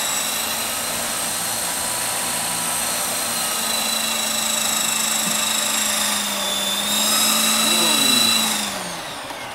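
Align T-Rex 450 electric RC helicopter in flight: a steady high whine from the motor and gears over the drone of the rotor. Near the end the whine falls in pitch and the sound drops away.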